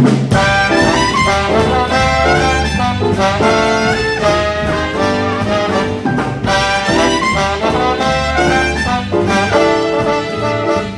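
Live swing band kicking straight into an instrumental intro: a horn section, trumpet among it, playing riffs over bass and drums. The music comes in abruptly at full volume.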